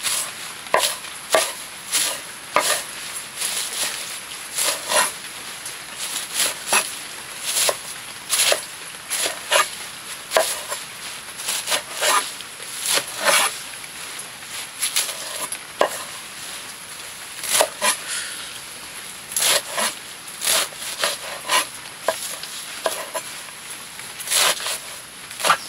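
Repeated sharp knocks and scrapes of a hand tool working pig fodder, irregular at roughly one to two strokes a second.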